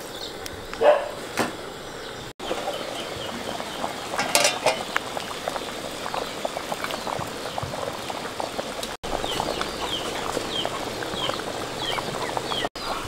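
Soup in a metal pot bubbling at a rolling boil: a steady bubbling crackle, with two brief louder sounds about a second in.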